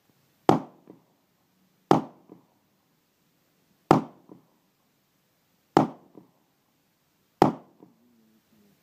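Five handgun shots fired one at a time at uneven intervals of about one and a half to two seconds. Each shot is followed by a fainter echo a little under half a second later.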